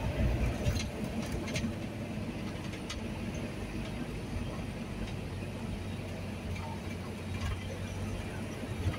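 Bus engine and road rumble heard from inside the cabin while driving, steady and low, with a few light rattles in the first three seconds.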